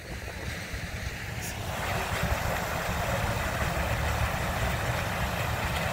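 A vehicle engine running nearby, a steady noise that swells about two seconds in, over a low rumble of wind on the microphone.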